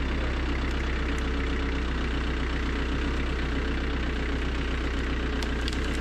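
Tractor engine idling steadily, an even low hum.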